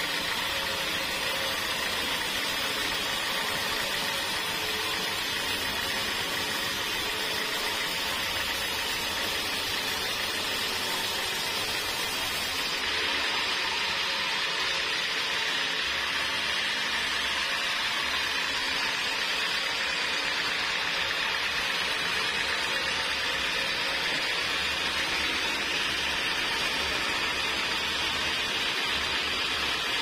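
Homemade band sawmill running, its blade cutting lengthwise through a jackfruit log: a steady, unbroken sawing noise over the machine's motor, shifting slightly about thirteen seconds in.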